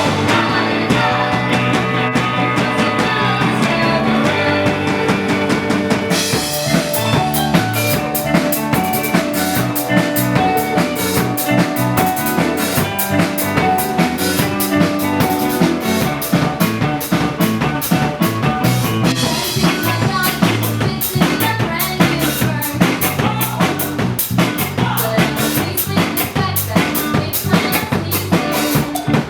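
Music with a drum kit beat of bass drum and snare; the drums come in fuller and brighter about six seconds in.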